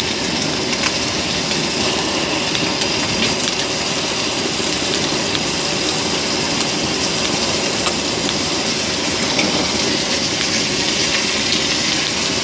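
Five-layer pork belly (ogyeopsal) sizzling in its own fat on a round griddle pan, a steady hiss scattered with small crackles, over a steady low rumble.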